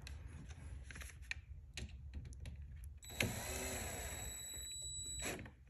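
A few light handling clicks, then about three seconds in a handheld cordless drill-driver runs for about two seconds, its motor pitch gliding, driving the bolt that fastens the cable to a scooter battery's positive terminal.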